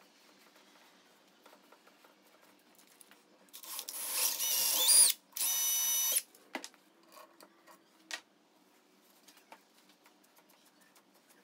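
Cordless drill running twice as a 5/16-inch bit bores out the small mounting hole in the alternator's housing. The first run lasts about a second and a half, its motor whine climbing in pitch. The second, shorter run is steady and is followed by a few light knocks.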